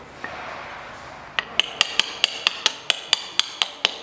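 A metal hand tool tapping rapidly and repeatedly on a steel lathe change gear, about four or five sharp metallic strikes a second, each with a brief ring. The tapping starts about a third of the way in.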